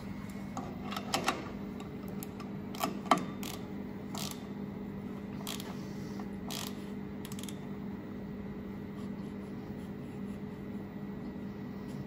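Sharp metal clicks and taps, a handful in the first seven seconds, as a grill platen's corner adjuster is wound with a tool and an L-shaped gapping tool is slid in under the platen, over a steady low hum.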